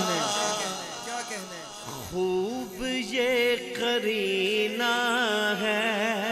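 A man singing a naat into a microphone, holding long drawn-out notes with wavering, ornamented turns between them.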